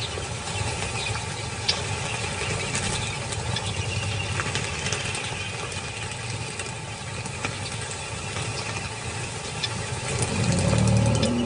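Many small birds chirping in short, scattered calls over a steady low rumble; about ten seconds in a deeper, louder rumble comes in.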